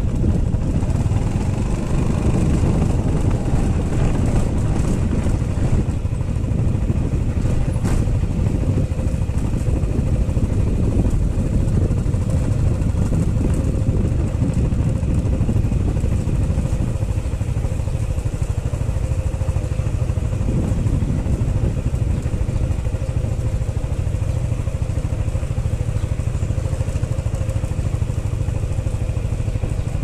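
Maxi scooter's single-cylinder engine running at low revs while the scooter rolls slowly: a steady low rumble with a constant tone above it.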